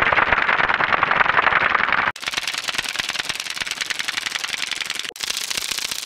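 Handheld plastic toy fan running: a fast, buzzy rattle of clicking blades, heard in edited versions that switch abruptly about two seconds in and again about five seconds in.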